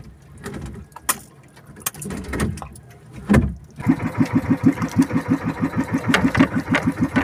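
Irregular knocks and rustling, with a low thump about three seconds in. Then, from almost four seconds in, an outrigger boat's engine runs with a fast, even chugging of about eight beats a second.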